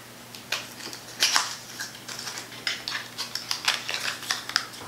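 Small paperboard cosmetics box being opened and the product pulled out: a run of irregular sharp clicks and crinkles from the packaging being handled.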